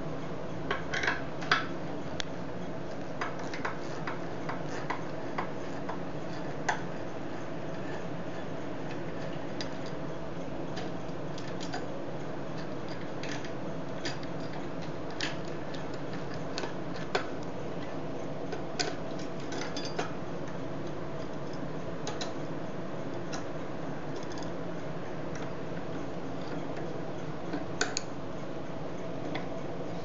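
Scattered, irregular light metallic clicks and ticks as a screwdriver works the screws of a door latch catch (strike plate) and the plate shifts against the frame, over a steady low hum.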